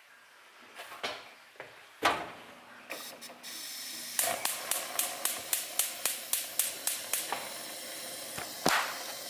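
Gas hob burner being lit: the spark igniter clicks about three to four times a second for some three seconds over the hiss of gas, and the gas carries on hissing steadily once the burner catches. A single knock comes about two seconds in and another near the end.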